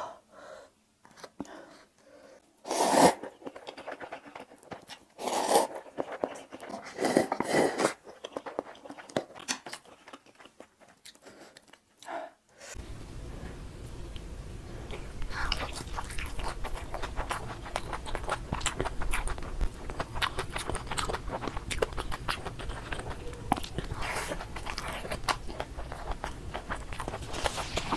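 Close-miked eating sounds. Cup noodles are eaten with chopsticks in a few loud bursts. Then, after a cut about 13 seconds in, fried eggs with crisp edges are bitten and chewed with small crunching clicks over a steady low background noise.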